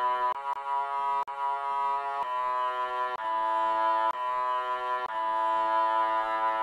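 Cello tone playing a slow melody, one steady held note after another, each about a second long with a short break between, among them B and A on the G string.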